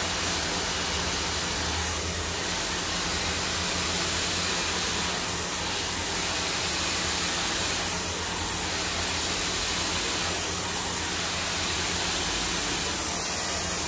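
Handheld hair dryer (blower) running steadily: a continuous rushing hiss of blown air over a low motor hum, swelling slightly now and then as it is swept along the hair over a round brush.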